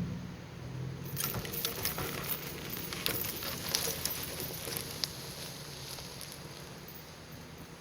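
Dry twigs and brush crackling and snapping: a dense run of small cracks starting about a second in and thinning out after about five seconds.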